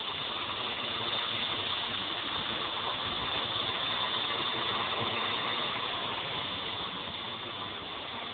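Walkera V200D02 flybarless RC helicopter in flight, its electric motor and spinning rotor blades making a steady high whine. It grows louder toward the middle as the helicopter passes overhead and eases off near the end as it comes down low.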